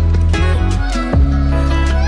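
Background instrumental music with sustained bass notes and a steady beat.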